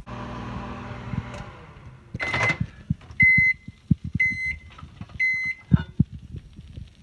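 Microwave oven running with a low hum for about two seconds, then three short beeps about a second apart signalling the end of the cooking time, followed by a single clunk.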